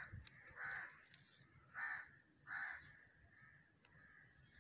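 A crow cawing repeatedly: four short calls less than a second apart, then a pause.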